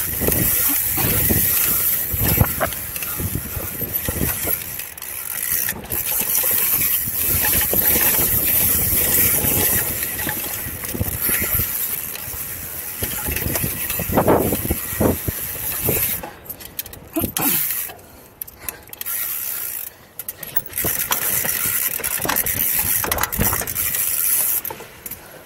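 Mountain bike ridden fast down a dirt singletrack: wind rushing over the camera's microphone, with the tyres on dirt and the bike rattling over bumps. The rush drops out briefly a few times past the middle.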